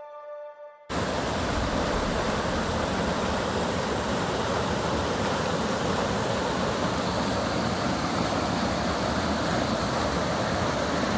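Heavy rain falling steadily, a dense even hiss that cuts in suddenly about a second in, after a fading ambient music chord.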